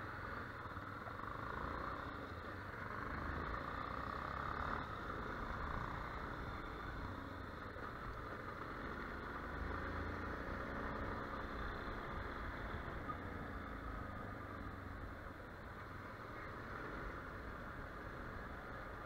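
Yamaha Ténéré 250 single-cylinder motorcycle riding at low town speed, its engine a low rumble under a steady rushing noise.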